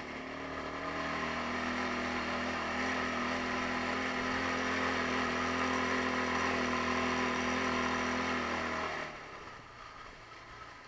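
Taotao 150cc ATV's single-cylinder four-stroke engine pulling steadily under throttle on the trail. About nine seconds in the engine note falls away sharply as the throttle is let off.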